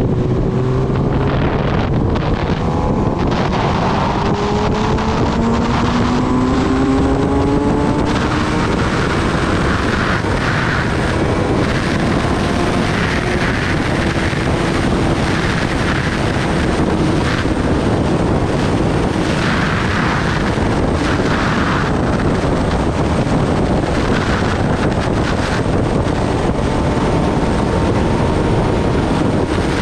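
Kawasaki Ninja ZX-10R inline-four engine under way, its note climbing steadily in pitch over the first ten seconds or so as the bike accelerates. Heavy wind buffeting on the microphone runs under it and takes over once the engine note levels off.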